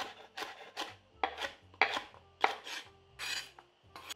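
Chef's knife dicing bell peppers on a wooden cutting board: about ten sharp knife strikes at an uneven pace, roughly two a second.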